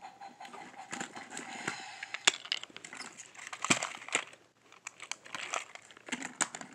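Plastic toy trains and track pieces handled close to the microphone: irregular clicks, knocks and rustling.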